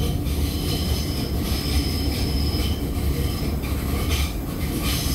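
Athens Metro Line 1 electric train running, heard from inside the car: a steady low rumble of wheels on the track with a high, thin whine that comes and goes above it.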